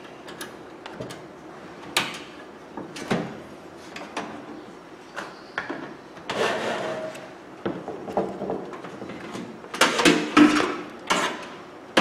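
Scattered clicks, taps and scrapes of hands fitting a new fuse into an opened microwave oven's fuse holder and handling parts on a wooden workbench, with a quick run of louder clicks about ten seconds in.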